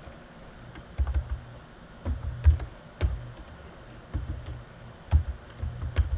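Typing on a computer keyboard: short clusters of keystrokes with pauses between them, each press a click with a dull thud.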